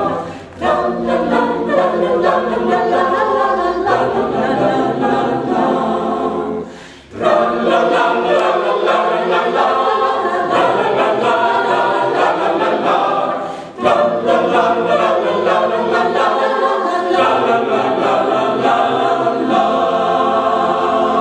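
Mixed chamber choir singing a Cypriot song a cappella in Greek, in long phrases with short breaks about half a second in, about seven seconds in and about fourteen seconds in.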